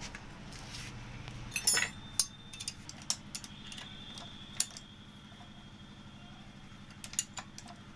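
Steel spanner and sprocket-holding tool clinking against the cam sprocket and its bolts while the bolts are being fitted on a Bajaj Maxima Z cylinder head. There are a few sharp metallic clinks: a quick cluster about two seconds in, single clinks after it, and another cluster near the end.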